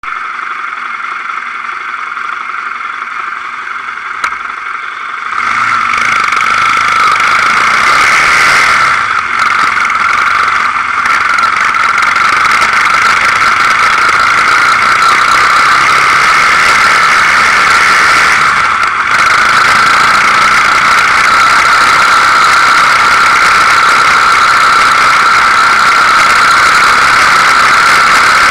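Quad bike engine idling quietly, then from about five seconds in running louder and steadily as the quad rides along a dirt track, with a strong high whine over the engine sound.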